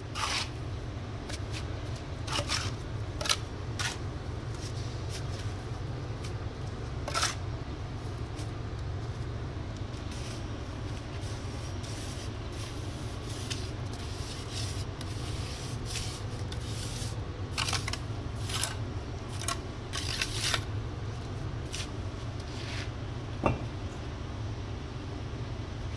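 Steel brick trowel scraping and knocking on wet cement mortar and bricks: short, sharp scrapes in a cluster early on and another in the second half, with a sharper knock near the end. Under them runs a steady low rumble.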